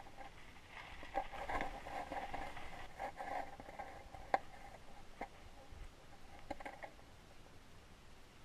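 Muffled underwater sound heard through a submerged camera's housing: scattered faint taps and clicks with a dull murmur, and one sharp click about four seconds in.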